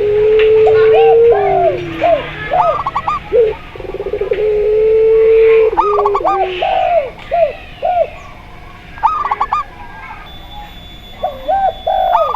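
Several doves cooing together: zebra doves' quick clusters of high, arching notes alongside spotted dove and puter pelung coos. Two long, drawn-out low coos that sag down in pitch at the end come at the start and about four and a half seconds in.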